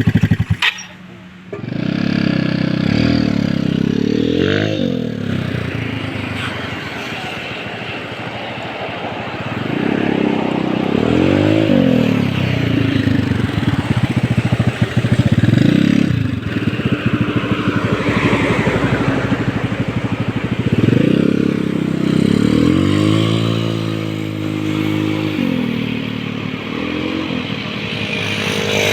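Yamaha Mio scooter's single-cylinder four-stroke engine, bored to 59 mm with a stock head, breathing through an Apido Chicken Pipe V4 aftermarket exhaust, revving up and easing off several times. Its pitch climbs and falls repeatedly, with a brief drop in level about a second in.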